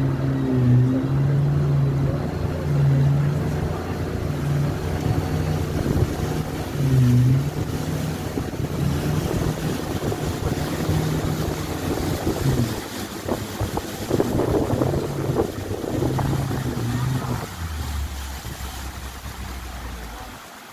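Outboard motor of a small river boat running under way, its note wavering up and down, with water rushing past the hull and wind buffeting the microphone. Near the end the engine settles to a lower note.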